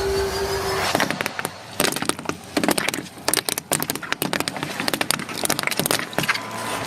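A rising swoosh, then a long run of sharp, irregular cracks and pops: a car's tyres crushing and bursting a collection of balls.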